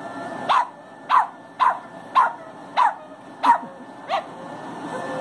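Small Chihuahua-type dog barking seven times in a row, quick high yaps about half a second apart, each dropping in pitch.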